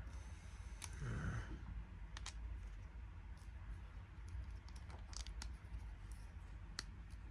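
Scattered light clicks and taps of hard plastic toy parts being handled, as a clip-on monster foot piece is worked onto an action figure's foot.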